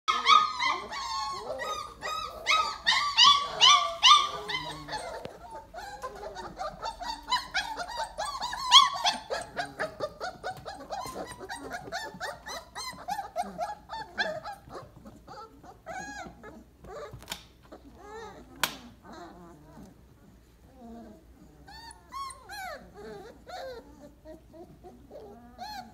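A litter of four-week-old Weimaraner puppies whining, many high-pitched cries overlapping, loudest in the first five seconds and then fainter and more scattered. Two sharp clicks come partway through.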